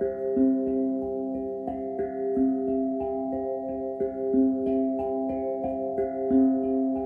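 Background music: a slow, echoing plucked-string melody of sustained notes repeating in a gentle pattern.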